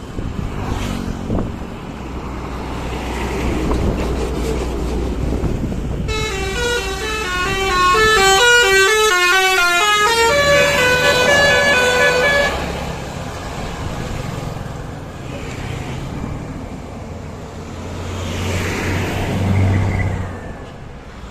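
Tunggal Jaya bus's telolet 'basuri' horn playing a fast multi-note tune, the notes stepping up and down for about six seconds. Around it the bus engine and road traffic are heard, and a vehicle passes close near the end.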